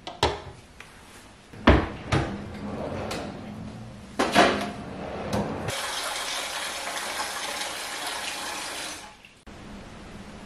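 Kitchen tap water running into a stainless steel pot for about three and a half seconds, stopping shortly before the end. Before it come a few sharp knocks and clatters of kitchenware, the loudest sounds here.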